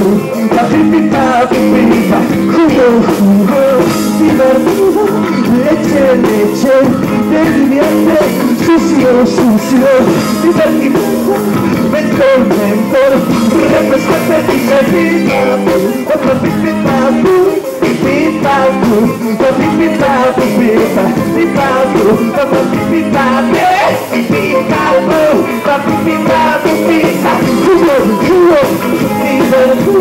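Rock band playing live with electric guitar, electric bass, drums and keyboard, picked up on a camcorder's microphone in the crowd.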